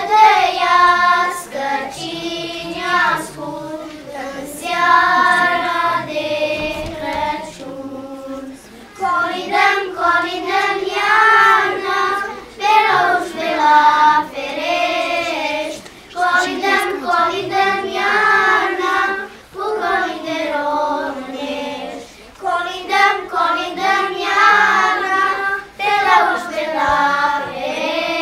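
A group of young children singing a Christmas song together, phrase after phrase with short pauses between.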